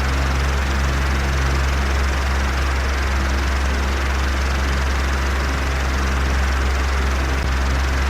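Electric fan running steadily: a continuous airy whoosh from the spinning blades over a low motor hum.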